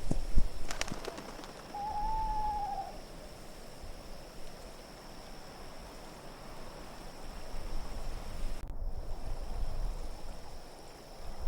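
An owl gives a single drawn-out hoot about two seconds in, over a steady low wind rumble and hiss. A sharp click comes just before the hoot.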